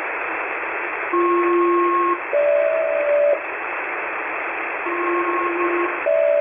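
HF aviation radio static with a SELCAL call sent twice. Each call is two one-second chords of two steady tones, a lower-and-higher pair followed by a closer mid-pitched pair, signalling the called aircraft's cockpit to answer the ground station.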